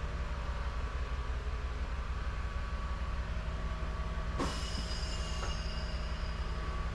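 A tire being worked back onto its rim on a tire-changer machine. There is a steady low hum throughout, and about four and a half seconds in comes a sharp snap followed by a brief high squeal.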